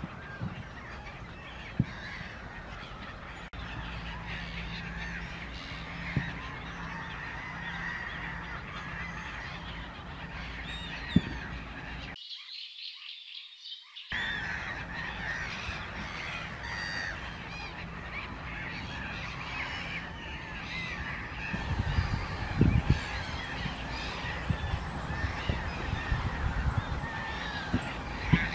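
A dense chorus of many birds calling over one another. The sound breaks off briefly about twelve seconds in, and low rumbles and thumps join in for the last few seconds.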